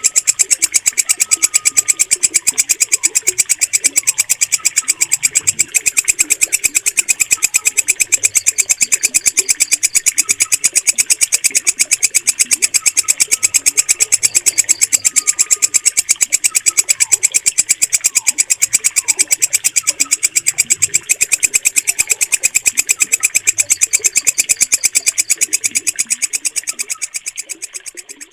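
Walang kecek, a green katydid, stridulating in a fast, even, unbroken chain of high, shrill pulses, fading out near the end. Faint bird whistles are heard underneath.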